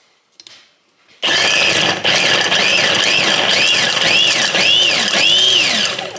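Electric food chopper running on a load of vegetables, fruit and nuts. It starts abruptly about a second in and runs loud for about five seconds, its pitch rising and falling about twice a second as the blades chop through the pieces.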